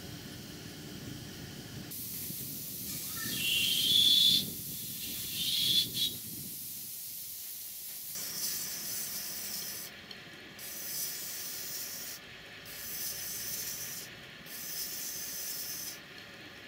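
Steam hissing from a live-steam model locomotive in steam on a test stand. The hiss rises into two loud spells about four and six seconds in, then comes and goes in spells of a second or two.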